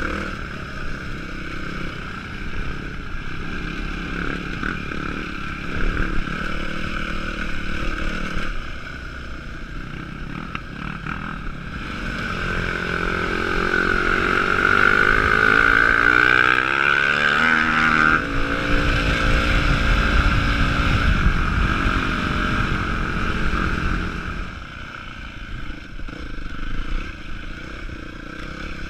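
Yamaha WR250F single-cylinder four-stroke trail bike engines running on a rough lane, with wind rushing over the camera. About halfway through, an engine's pitch rises steadily for several seconds as a bike revs up, then breaks off, and the sound gets quieter after that.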